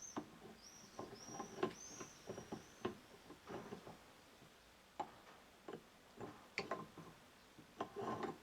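Faint, irregular metallic clicks, taps and scrapes of a Toyota 4Runner driveshaft universal joint's parts being worked together by hand: the yoke is being fitted over the cross and its greased needle bearings. A few short high squeaks come in the first couple of seconds.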